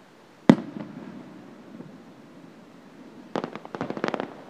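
Aerial firework shell bursting with one sharp bang about half a second in, a low rumble trailing after it, then a rapid run of crackling pops near the end.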